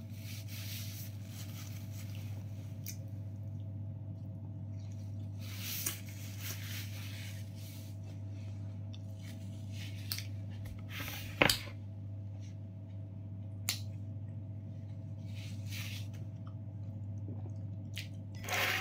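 Chewing and soft eating sounds from a mouthful of fried fish wrapped in Arabic bread, with light rustles of tissue paper and a few sharp clicks, the loudest a little past halfway, over a steady low hum.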